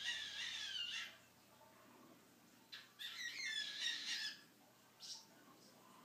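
Normal grey cockatiel vocalizing: two raspy, wavering calls, each about a second long, one at the start and one about three seconds in.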